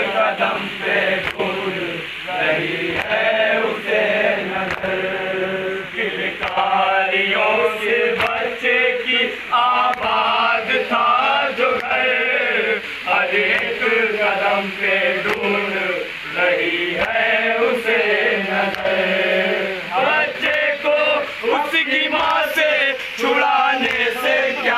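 Male voices chanting a noha, a Shia mourning lament, without instruments: one lead voice carries the melody and a group of men joins in. Faint slaps keep time under the chant, typical of matam chest-beating.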